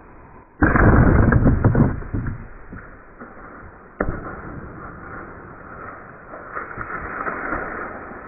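An arrow shot from a bow at a deer: a sudden loud thump about half a second in, with a second or so of clattering and crashing after it. A single sharp click comes about four seconds in, then rustling that grows louder toward the end.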